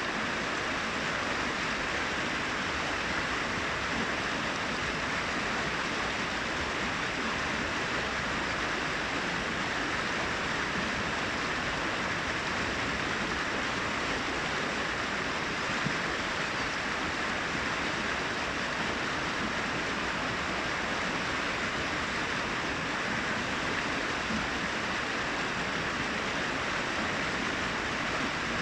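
Brook water cascading over rocks: a steady, even rushing with no breaks.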